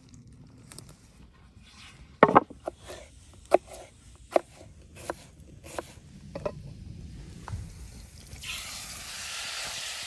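A knife slicing an onion on a wooden cutting board, a run of irregular sharp knocks. About eight and a half seconds in, chicken starts sizzling as it fries in a pot over a wood fire.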